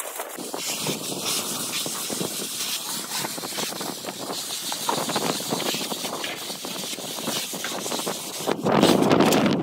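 Hand trowels scraping and spreading render across a wall, a steady gritty hiss of many short strokes, louder for the last second.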